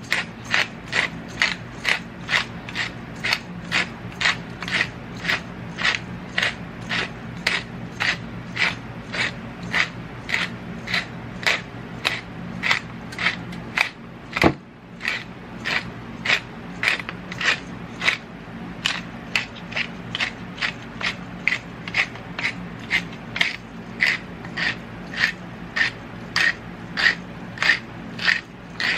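Hand pepper mill being twisted, grinding whole peppercorns in steady crunching strokes, about two a second. A single sharper knock sounds about halfway through.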